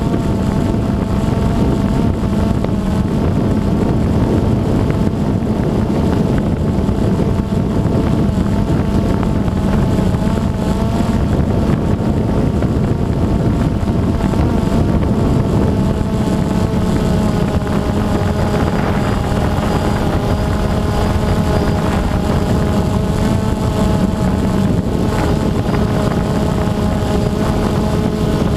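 DJI Phantom 2 quadcopter's four electric motors and propellers heard from the onboard camera, a steady whine of several tones over a rush of air as the drone hovers. The pitches waver slightly as the motors correct, with a lower tone joining about two-thirds of the way through.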